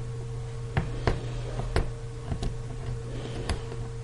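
A handful of small, sharp clicks at irregular intervals as a small Phillips screwdriver works the corner screws of an iPhone 4S frame, over a steady low hum.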